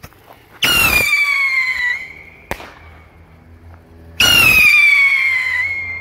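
Two Kingbird Silver Streak whistling rockets going off one after the other. Each lifts off with a loud, shrill whistle or screech that slowly falls in pitch over about two seconds and ends in a sharp pop as it bursts.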